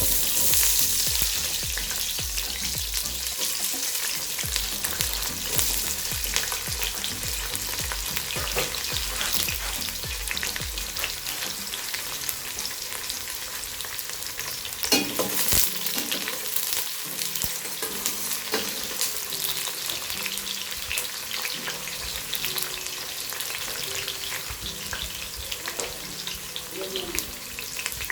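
Food frying in hot oil in a pot: a loud sizzle starts suddenly at the beginning, as food goes into the heated oil, then settles into a steady crackling sizzle. A few sharper clinks come from stirring, one about halfway through.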